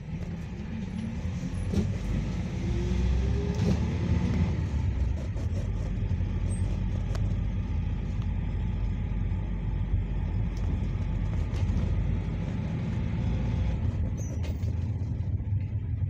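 NefAZ city bus heard from inside the passenger cabin while driving: steady engine and road rumble with light rattles, and the engine tone rising as the bus speeds up about two to four seconds in.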